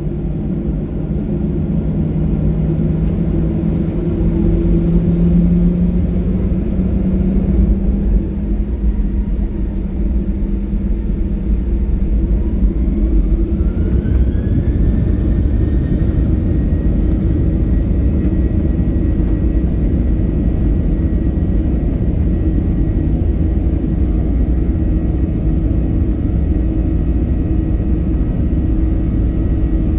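Boeing 737-800's CFM56-7B jet engines heard inside the cabin, spooling up to takeoff thrust: a whine rises in pitch between about twelve and sixteen seconds in and then holds steady over a constant low rumble.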